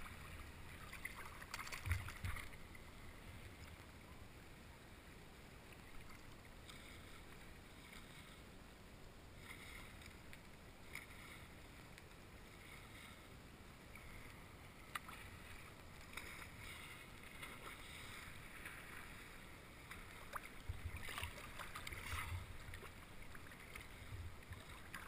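Faint lake water lapping and sloshing around a helmet-mounted camera at the surface, with small splashes and a few low thuds about two seconds in and again near the end.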